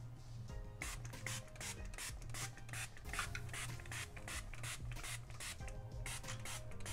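Hand trigger spray bottle of multipurpose cleaner squeezed over and over, a quick run of short hissing spurts, about three or four a second.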